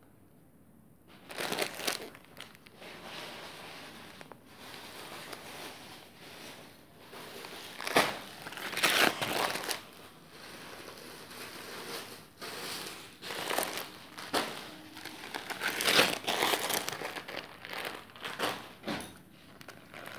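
Clear plastic wrapping on packaged sarees crinkling and rustling as the packs are handled and moved, in repeated uneven bursts that start about a second in.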